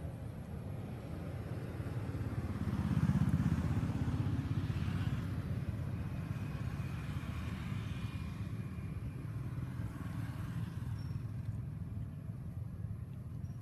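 Low engine rumble of a passing motor vehicle, swelling to its loudest about three seconds in and then slowly fading.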